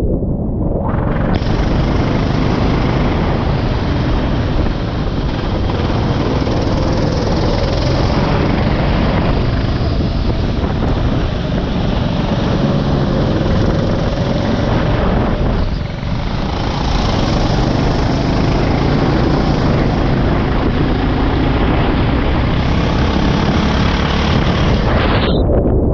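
Go-kart on track, its engine running under a heavy rumble of wind on the microphone. A loud hiss joins about a second in, fades briefly around two-thirds of the way through and cuts off near the end.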